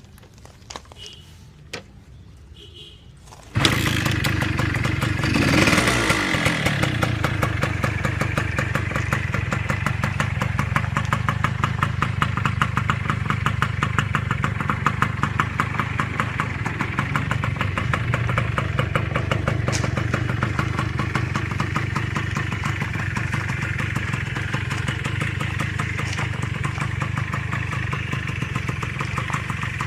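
Kawasaki Binter GTO 110 two-stroke motorcycle engine starting about three and a half seconds in after a few faint clicks. It is blipped once about two seconds later, then idles steadily with a rapid firing beat.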